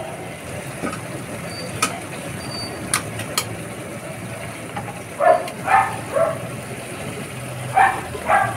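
Wooden spatula stirring and lifting noodles in a frying pan, with a few sharp clicks against the pan over a steady rumble; a handful of short, louder sounds come in the second half.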